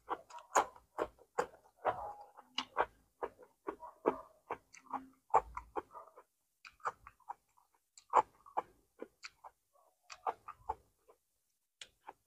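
Close-up eating sounds: a person chewing with wet mouth smacks and clicks. They come in a quick, dense run for the first half, then grow sparser and fade out near the end.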